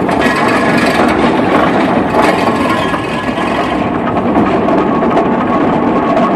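Rumely steam traction engine running under way, a loud, steady mechanical clatter of the engine and its gearing.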